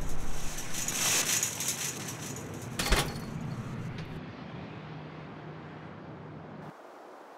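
Designed soundtrack fading out: a noisy rumbling wash with crackling hiss that dies away, one sharp crack about three seconds in, then a low steady hum that cuts off abruptly near the end.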